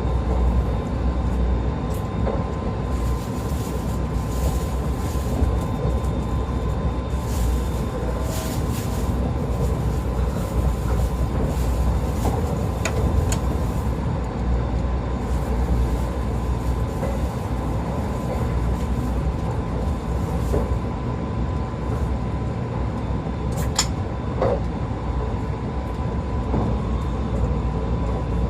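Running sound of a 681 series electric multiple unit motor car, KuMoHa 681-506, cruising at steady speed: a continuous low rumble with a steady high whine and a few sharp clicks along the way.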